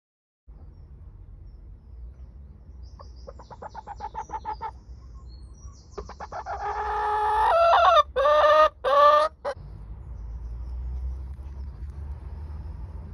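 A laying hen calling from the nest box. A run of rapid clucks comes about three seconds in, then a loud, drawn-out call in three parts, with a low rumble underneath.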